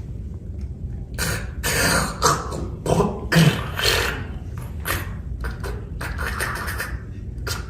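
A beatboxer imitating water drops with his mouth: a run of irregular pops, clicks and short breathy bursts, starting about a second in.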